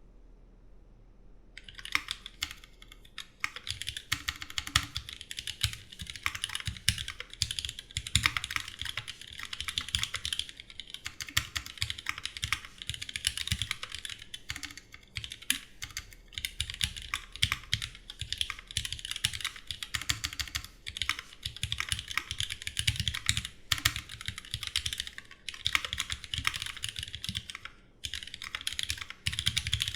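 Continuous fast typing on a Duck Jetfire mechanical keyboard with rebuilt, lubed vintage Cherry MX Black linear switches and GMK keycaps. The typing starts about a second and a half in and has brief pauses near the end.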